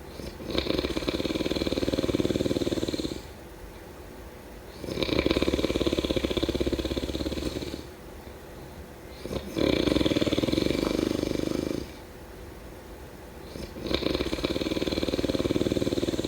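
A sleeping person snoring in a steady rhythm: four long snores, one about every four seconds, each lasting about two and a half seconds, with quieter stretches between.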